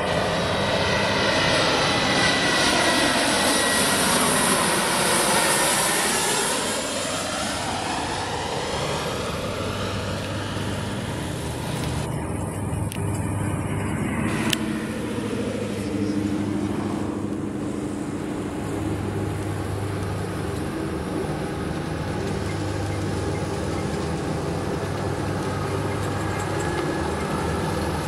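Embraer E-Jet's twin CF34 turbofans whining loudly as it passes low overhead on final approach, the pitch falling as it goes by. Then a quieter, steadier jet rumble with a low hum as the airliner comes down onto the runway and rolls out, broken by a brief click about halfway through.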